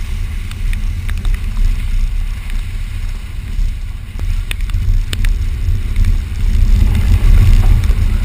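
Subaru Forester driving off-road on wet ground: a steady low rumble of engine and tyres, growing a little louder near the end, with a few sharp knocks scattered through it.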